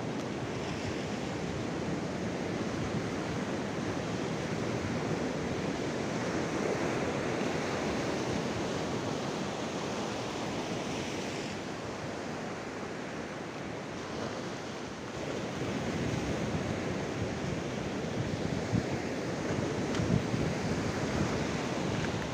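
Sea surf breaking and washing over a coastal rock shelf: a steady rush of water that eases a little around the middle and swells again after.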